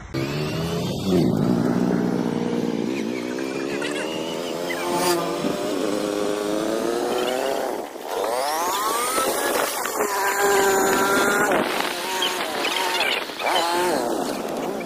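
Small motorcycle engine running under way, its pitch rising and falling again and again as the bike accelerates along the road, with a short drop in level about halfway through.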